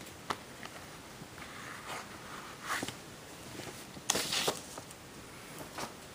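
Comic-book mailing package being handled and opened by hand: scattered soft taps and rustles, with one louder crinkling rustle about four seconds in.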